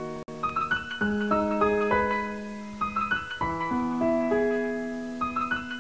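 Background piano music: single notes and chords struck about once a second and left to ring and fade, with a momentary dropout just after the start.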